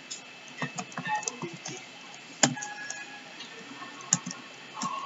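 Computer keyboard being typed on: a few scattered keystrokes, with one louder keystroke about two and a half seconds in.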